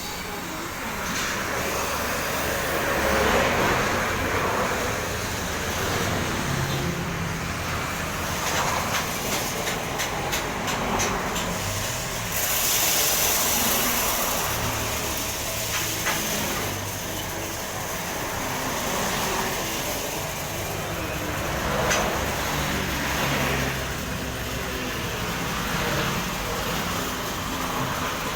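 Coffee roasting machine running, a steady mechanical whirr with a low hum. A run of clicks comes around ten seconds in, and a short burst of hissing about twelve seconds in.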